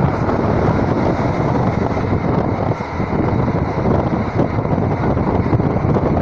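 Wind buffeting a phone's built-in microphone: a steady, loud rushing noise with a heavy low rumble and no distinct tones.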